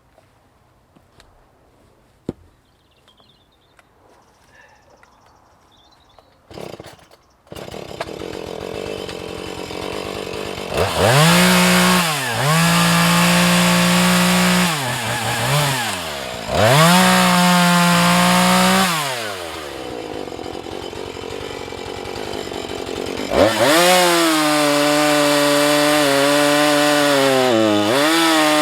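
A few faint knocks, then a two-stroke Husqvarna chainsaw is started about seven seconds in. It idles briefly and revs to full throttle in two long runs, its pitch dipping as it cuts wood. It drops to idle for a few seconds, then goes back to full throttle near the end.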